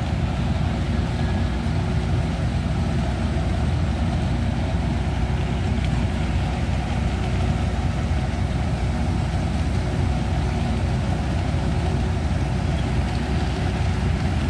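Heavy diesel construction machinery running steadily at an even pitch, with no breaks or changes.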